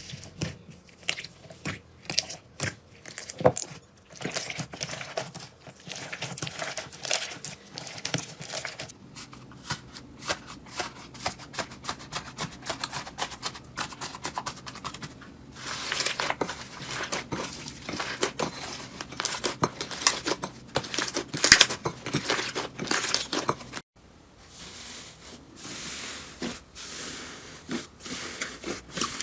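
Hands squeezing and pressing slime: dense, irregular crackling and popping clicks. A brief break near the end leads into a quieter stretch of the same kind of crackling.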